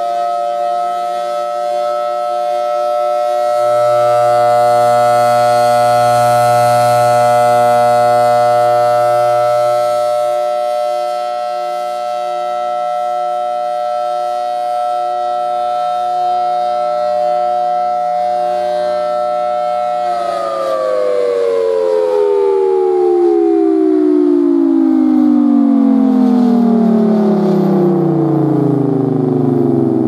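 Thunderbolt 1003A three-phase rotating tornado siren sounding a steady alert tone, growing louder and softer as the horn turns. About twenty seconds in it shuts off and winds down in a long falling pitch. A low hum sounds for several seconds near the start.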